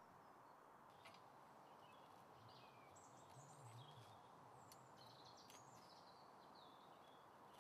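Faint woodland birdsong: several short chirping and sliding calls over a steady background hiss.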